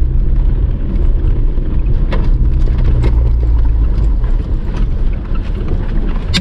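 Jeep Wrangler's engine running with a steady low rumble, easing a little about five seconds in, with a short sharp click near the end.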